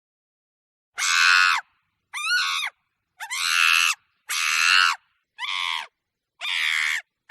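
Monkey screaming: six harsh, high-pitched calls of about half a second each, roughly one a second, with dead silence between them.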